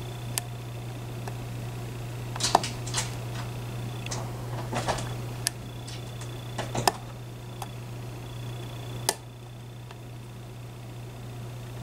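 Small, irregular metallic clicks and scrapes of a lock pick working the pins of a Medeco Biaxial lock cylinder under tension, with a few sharper clicks, the loudest about 2.5, 7 and 9 seconds in. A steady low hum runs underneath.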